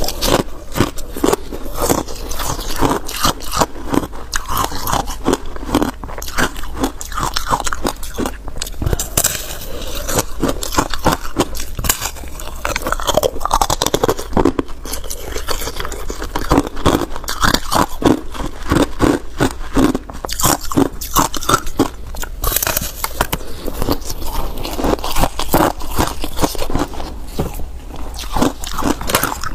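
Frozen passion fruit ice being bitten and chewed: a continuous run of crisp crunches and crackles as the ice breaks between the teeth.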